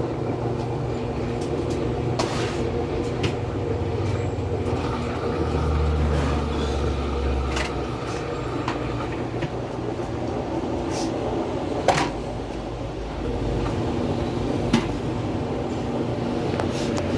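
Washing machine running with a steady motor hum, the low rumble swelling for a couple of seconds partway through, with a few sharp clicks or knocks.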